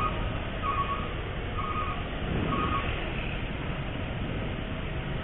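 Electronic beeping about once a second, each beep a short note of two close tones, stopping just under three seconds in, over steady street traffic noise.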